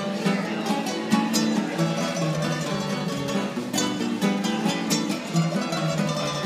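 Two acoustic guitars playing a serenade together, with strummed chords and sharp strokes recurring throughout.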